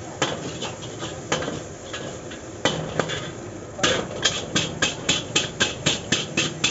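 Metal spatula striking and scraping the inside of a wok while stir-frying. A few scattered clanks at first, then a quick even rhythm of about four clanks a second from about four seconds in.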